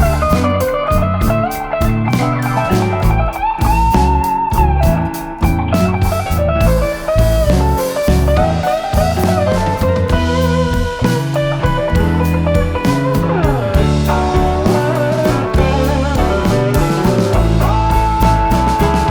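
Background music: a blues-style electric guitar with bent notes over bass and drums.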